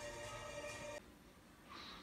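Faint video-game title-screen music playing from a television: sustained held tones that fall much quieter about a second in.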